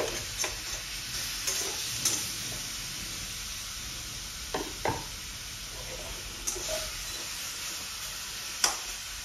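Pieces of pork fat sizzling steadily in a hot frying pan as their fat renders out, with a metal spatula now and then clinking and scraping against the pan as the pieces are turned.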